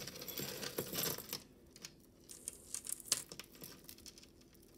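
Metal jewelry chains and beads clinking and rustling as hands untangle a pile of necklaces: a busy patch of small clicks and rustle in the first second and a half, then a few scattered light clicks, one sharper about three seconds in.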